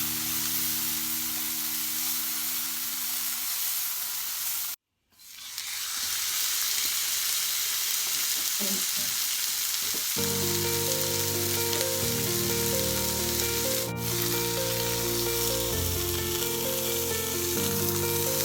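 Food sizzling as it fries in a pan, a steady hiss. It cuts out completely for a moment about five seconds in, then carries on, with background music coming in about halfway through.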